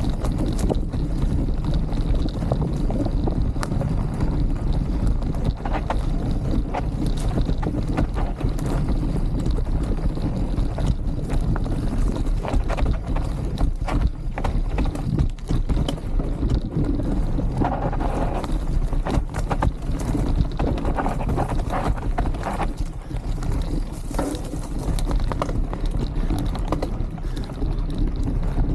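Wind buffeting the microphone over a steady low rumble, with many small knocks and rattles throughout, as the recorder moves down a rough trail.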